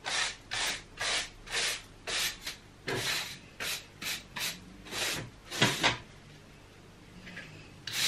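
A brush scrubbing across brick slips and their dried mortar joints in brisk diagonal strokes, about two a second, loosening bits of mortar stuck to the bricks. The strokes stop about six seconds in.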